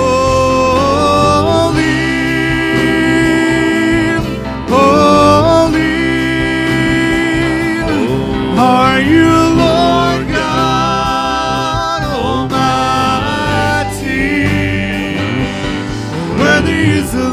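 Live worship band playing a slow song: several voices singing long, gliding melody lines over acoustic guitar and keyboard chords.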